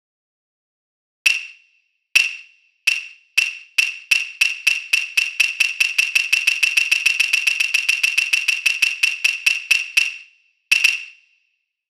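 Wooden clappers (hyoshigi) struck sharply: a few widely spaced clacks that speed up into a rapid, even roll of about five clacks a second, then a pause and one final clack near the end.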